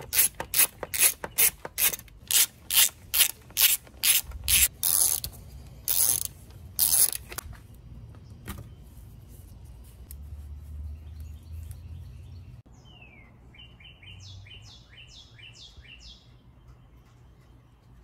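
Hand ratchet clicking as it unscrews a bolt: a quick run of sharp clicks, about three a second, then two slower strokes.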